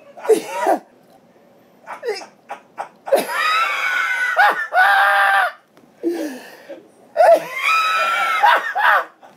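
Men laughing hard and loudly, in two long high-pitched bouts, the first about three seconds in and the second about seven seconds in, with short snickers before them.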